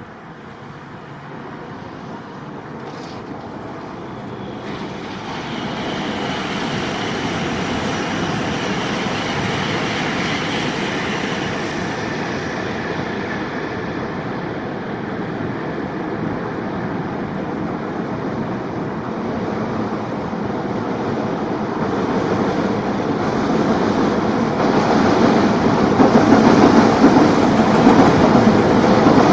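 Container freight train hauled by an EF210 electric locomotive rolling across a steel girder railway bridge, a steady rumble with wheel clatter that grows louder throughout as it draws near, reaching its loudest as the container wagons pass close in the last few seconds.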